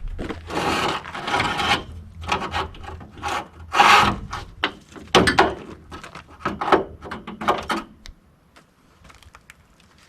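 A run of irregular scraping and rubbing strokes with a few sharper knocks, from hands-on work pulling and prying at parts. It dies down about two seconds before the end.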